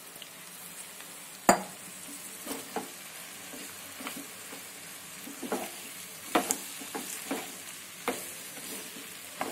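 Wooden spatula stirring soaked flattened rice into frying vegetables in a pan over a steady sizzle, with irregular knocks of the spatula against the pan, the loudest about a second and a half in.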